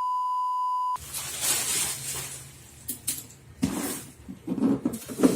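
A steady electronic beep tone for about a second, cut off sharply, then scattered rustles, clicks and knocks of a cardboard box being handled.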